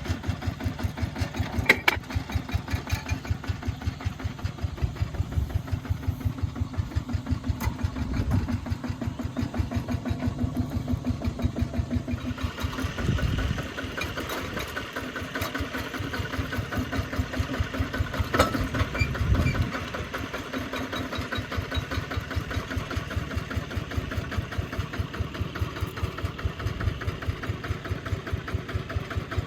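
An engine running with an even, rapid chugging beat, shifting in tone about halfway through.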